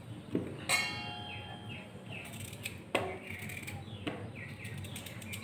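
Knife cutting raw green mango, with slices dropping into a stainless steel bowl: a few sharp clicks, the loudest, near the start, ringing like struck metal. Birds chirp in the background with short, repeated falling calls.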